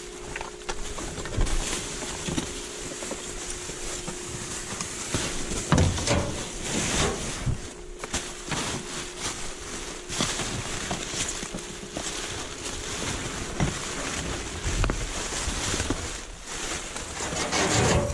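Thin plastic trash bags rustling and crinkling in irregular bursts as gloved hands rummage through them, with a steady faint hum underneath.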